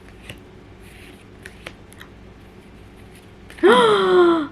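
Soft rustles and light clicks of trading cards being handled and flipped through. About three and a half seconds in, a woman gives a loud, drawn-out exclamation as she spots a good card.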